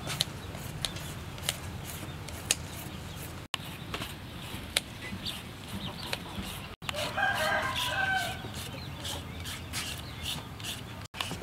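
A rooster crowing once, about seven seconds in, the loudest sound here. Scattered light clicks and scrapes of hand food preparation run underneath.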